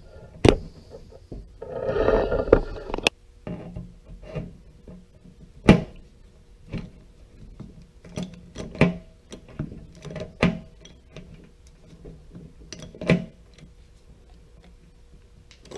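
Stanley MR77 hand pop-rivet gun being squeezed to set a pop rivet in sheet metal: a series of sharp clicks and clacks from the handles and jaws gripping and drawing up the mandrel, closely spaced from about eight seconds in. A short rustle of the sheet-metal lid being handled comes about two seconds in.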